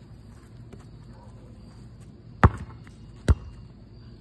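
A basketball bouncing twice on an asphalt driveway: two sharp, heavy thuds a little under a second apart, the first about two and a half seconds in.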